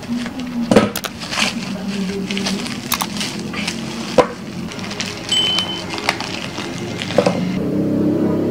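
Bubble-wrap packaging crinkling and rustling as it is snipped with scissors and pulled off rubber bonnet stops, with several sharp clicks and snaps. Background music underneath, growing louder near the end.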